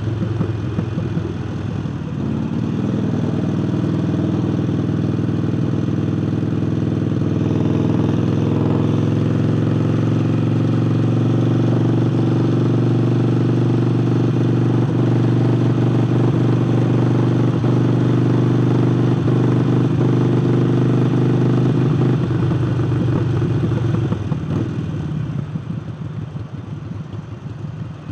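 Harley-Davidson Forty-Eight's air-cooled V-twin running with a new aftermarket air intake, holding a steady pitch under way, then backing off and quieting near the end.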